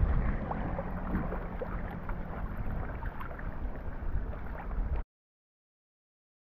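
Wind buffeting the microphone over light water splashing and lapping around stand-up paddleboards being paddled. The sound cuts off abruptly about five seconds in.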